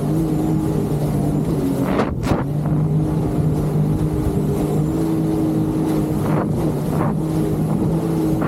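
Jet ski engine running at a fairly steady speed, its note shifting slightly in pitch, with wind on the microphone. A few short bursts of noise break in about two seconds in and again near the end.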